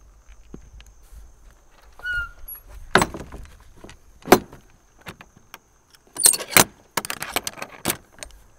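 Wooden shop door being shut and latched: a short squeak, two sharp knocks as it closes, then a metal bar latch rattling and clicking as it is slid into place. A faint steady high tone runs underneath.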